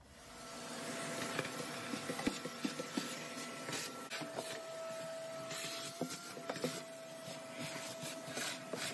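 Vacuum cleaner switched on and spinning up over the first second, then running steadily with a steady whine as its crevice nozzle sucks loose spray-foam crumbs off the wheel-well insulation, with scattered clicks and scrapes as bits go up the hose and the nozzle knocks on the wood.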